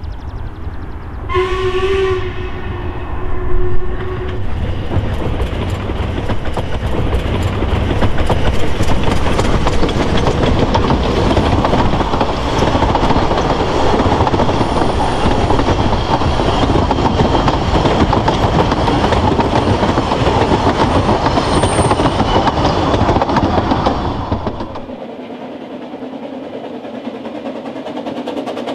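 Narrow-gauge Ffestiniog Railway steam locomotive sounding its whistle once for about three seconds, a second or so in, followed by the loud rumble and rail clatter of its train of carriages passing close by for about twenty seconds. About 25 s in the sound drops to a much quieter, more distant train.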